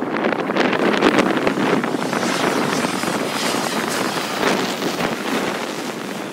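Twin-engine jet airliner on landing approach passing low overhead: a steady jet rumble and rush, loudest about a second in and slowly fading, with wind buffeting the microphone.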